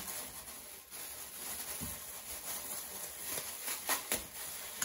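Thin clear plastic bag rustling and crinkling as it is stretched over a stainless steel bowl of dough, with a few soft crackles.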